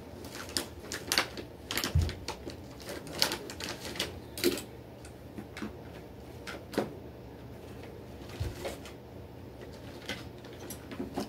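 Irregular light clicks and taps, sometimes several in quick succession, with a soft low thump about two seconds in and another at about eight and a half seconds.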